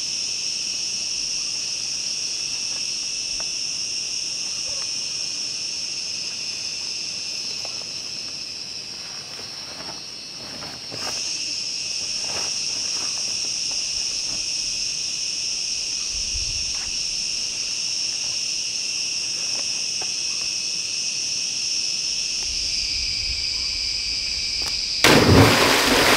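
Steady high-pitched insect chorus, shrilling in two bands without a break. A few scattered knocks sound through the middle, and a loud rush of noise breaks in about a second before the end.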